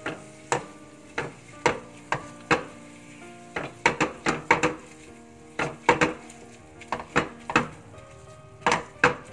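A metal potato masher knocking repeatedly against a non-stick wok while mashing cooked beetroot and potato, about twenty irregular clacks, some in quick runs. Soft background music plays underneath.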